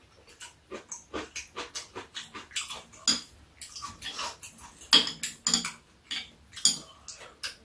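Metal chopsticks and spoons clicking and clinking against bowls at an irregular pace while two people eat, with chewing sounds in between. A few sharper clinks stand out about five seconds in and again near the end.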